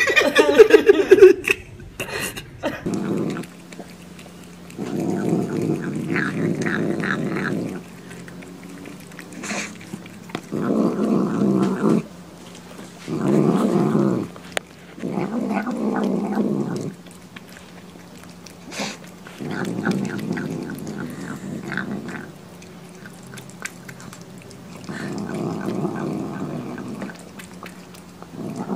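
A cat eating dry kibble growls over its food in a series of low, rough bouts, each two to three seconds long with short pauses between. A loud falling meow from another cat comes right at the start.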